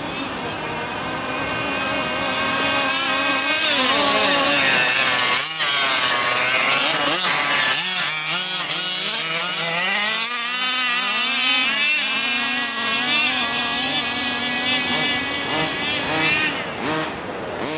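Small two-stroke engine of a 1/5-scale gas RC car running hard, its pitch rising and falling again and again as the throttle is worked.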